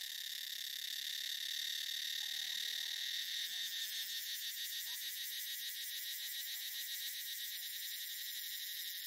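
Steady high-pitched insect chorus with a rapid, even pulsing, with a few faint short chirps over it.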